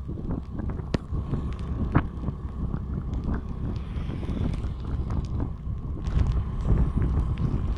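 Wind buffeting the microphone of a phone carried on a moving vehicle, over a low road rumble, with a faint steady whine and a couple of short knocks near the start.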